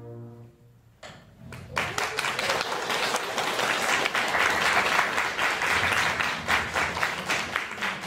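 The last held note of the music fades out, and about a second in the audience breaks into applause that carries on steadily.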